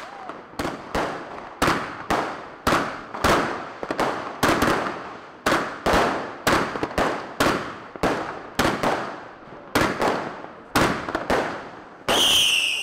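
A long run of firecracker bangs at street level, roughly two a second, each with a short echoing tail. A high whistle starts near the end.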